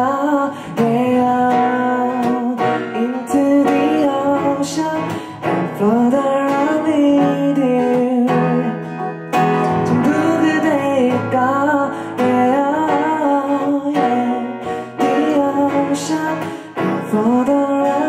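Music: a man singing a slow ballad melody over strummed acoustic guitar.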